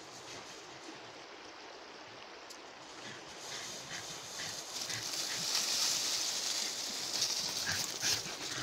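Footsteps crunching through snow, starting about three seconds in at roughly two to three steps a second and growing louder, over a steady hiss.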